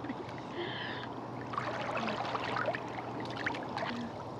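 Hot tub water bubbling and trickling steadily over a low steady hum, with light splashes and drips through the middle as a person moves across the tub.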